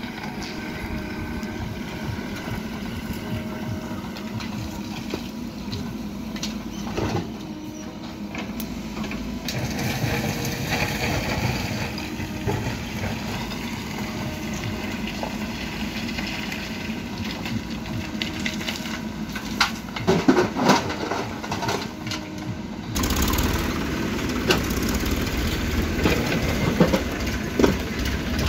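Diesel engines of a Mahindra SX backhoe loader and a Massey Ferguson tractor running while the backhoe digs and loads broken stone. Knocks of rock come about seven seconds in and again around twenty seconds in, and the engine noise gets louder for the last few seconds.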